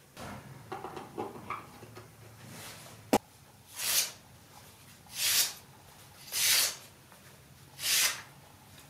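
Freshly sharpened knife slicing through a hanging sheet of paper four times, each cut a short papery hiss, about a second and a half apart: a paper-cutting test of the new edge. Before the cuts come light handling rustles and one sharp click.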